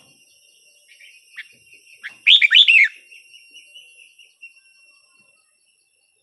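Red-whiskered bulbul singing: a few faint short chirps, then about two seconds in a loud, quick phrase of several sweeping notes lasting under a second.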